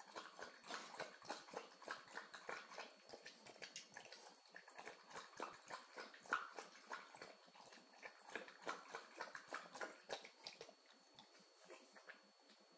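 A dog lapping water from a bowl: a faint, fast, even run of laps, about three to four a second, that stops shortly before the end.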